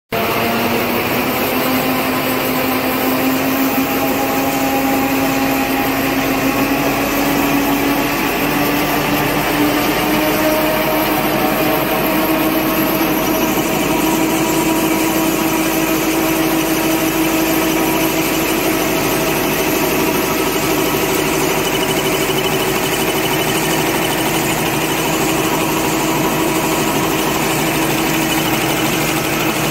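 Napkin paper folding machine running, a steady mechanical clatter with a motor hum whose pitch rises slowly over the first dozen or so seconds and then holds steady.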